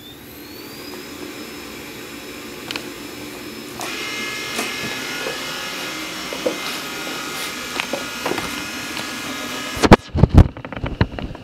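Robot vacuum cleaners (an ILIFE V7S and a Xiaomi Mi robot vacuum) starting up. A motor spins up with a rising whine, then settles into a steady running hum with several whirring tones, and the sound steps up in level about four seconds in. Near the end comes a burst of loud knocks and clatter.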